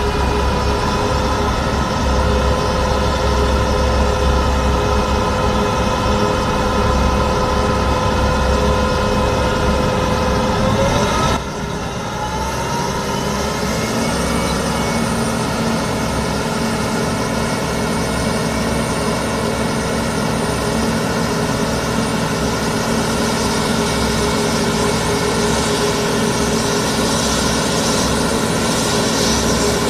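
Airport crash-tender fire truck's heavy engine running with a steady, deep, many-pitched drone. Just before a sudden change about eleven seconds in, the pitch rises. From then on it runs steadily again while the roof water cannon sprays.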